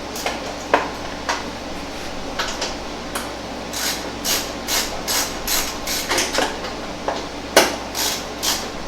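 Hand tools clicking and clanking on a truck door's hinge bolts as the door is fitted: a series of sharp metallic clicks, a run of them about two a second in the middle, with one louder clank a little before the end.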